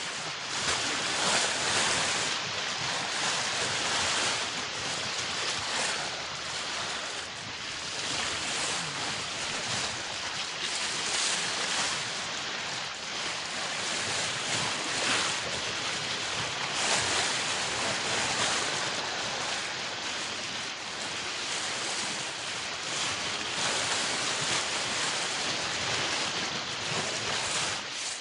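Bow wave rushing and splashing along a sailboat's hull as it sails, swelling and easing in surges every second or two, with wind on the microphone.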